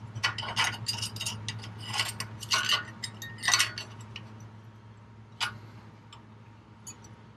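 Steel U-bolt muffler clamp being worked onto an exhaust tailpipe: a quick run of light metal clinks and taps for about four seconds, then a few scattered clicks.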